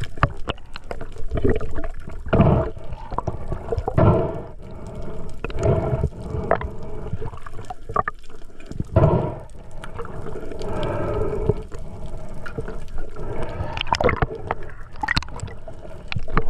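Water gurgling and sloshing around a camera in the sea, with irregular louder surges every second or two.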